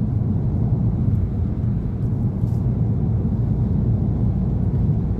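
Steady low road and engine rumble of a car driving along, heard inside the cabin.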